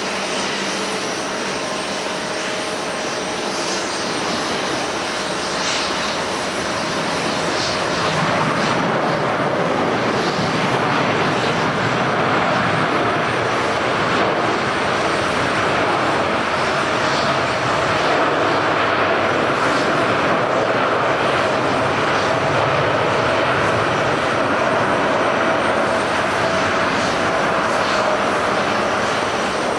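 Jet airliner's engines: a steady rushing noise with a constant whine, growing louder about eight seconds in and then holding.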